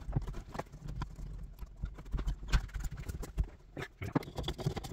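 Irregular knocks, taps and thumps of a rubber floor mat and plastic interior trim being handled and laid back into place on a car's floor.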